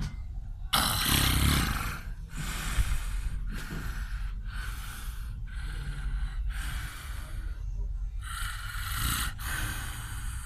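Snoring: hissing, raspy breaths in and out in a regular rhythm, about one breath sound a second.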